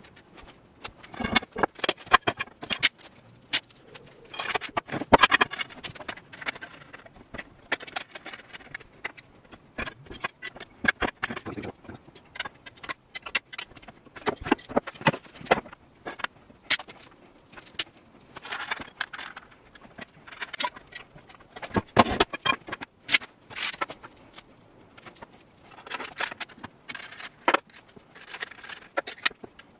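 Small metal parts clinking and aluminium extrusion profiles knocking on a wooden board while a T-slot frame is assembled: hammer nuts, corner brackets and screws being handled and fitted. Irregular clicks and clatters come with short pauses between them.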